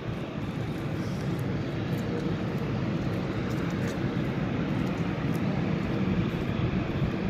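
Jet airliner's engines on the runway across the water: a steady low rumble that grows a little louder.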